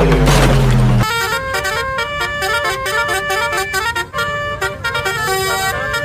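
Telolet Basuri bus horn, a set of musical horn trumpets, playing a quick tune of short stepped notes. A deep low tone sounds under it and stops about a second in.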